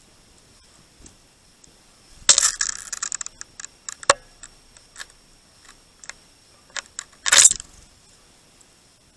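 Small birds at a feeder: two brief flurries of rustling and clattering, one about two seconds in and one about seven seconds in, with scattered sharp clicks and clinks between them.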